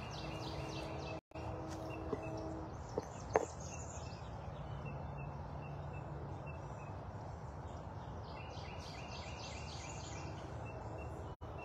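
Outdoor background noise with a bird's rapid, evenly repeated high chattering call, heard twice. A low steady hum stops about three seconds in, and the sound cuts out for an instant twice.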